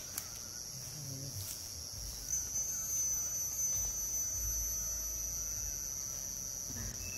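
Insects droning in a steady high-pitched tone, with a faint low rumble underneath.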